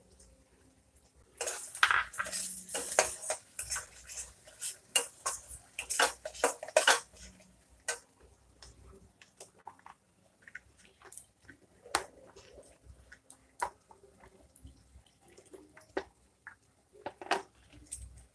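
Flat metal spatula scraping and clinking against a stainless-steel kadai as a thick masala paste is stirred. The scraping is busy for a few seconds, starting about a second and a half in, then thins to occasional taps and scrapes.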